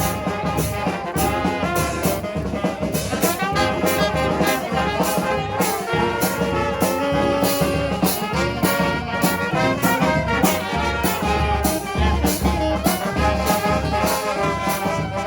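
Brass band playing an upbeat tune, brass melody over a steady beat.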